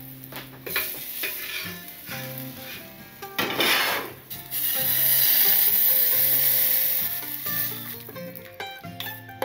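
A hot pan sizzling: a loud, steady hiss that sets in about five seconds in and lasts some two and a half seconds, after a shorter rush of noise, over soft background music.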